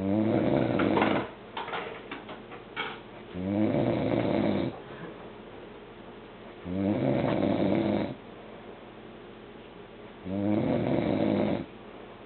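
A man snoring in a steady rhythm: four long, loud snores about three seconds apart, with a few short crackling sounds after the first.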